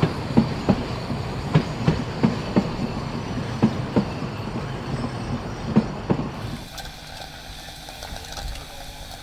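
Wheels of narrow-gauge passenger coaches clicking and clacking over rail joints as the train rolls away, the clicks coming in irregular pairs over a rumble. About six seconds in, the clicks stop abruptly and give way to a quieter, steady background.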